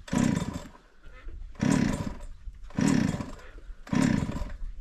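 Power driver driving large screws into timber, run in four short bursts about a second apart.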